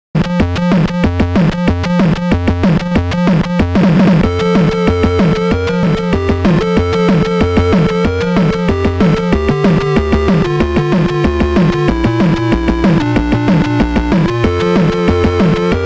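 Intro music: electronic synthesizer track with a steady beat, a repeating bass line and a held melody that steps down in pitch, with a sweeping swell about four seconds in.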